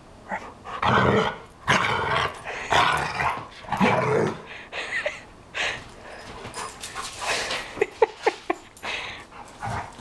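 Two dogs play-fighting, with repeated rough growling and snarling and the scuffle of their bodies, loudest in the first half. A few short sharp sounds come about eight seconds in.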